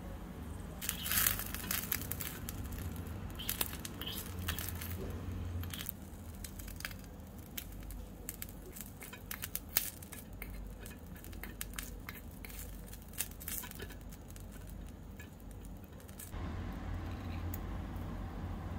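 Tiny metal spatula scraping and clicking irregularly against a miniature stainless steel pan while chopped onions and ginger garlic paste are stirred, over a low steady hum. The clicking stops near the end.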